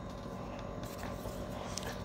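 Steady low background hum and hiss with no distinct knocks or clicks.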